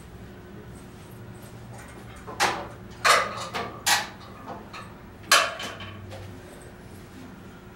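Sharp metal clanks and rattles of a home gym cable machine's handles and fittings being handled, about five knocks between two and six seconds in.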